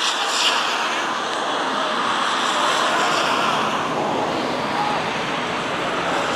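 Steady rushing wind noise on the microphone, with faint shouts from players on the field.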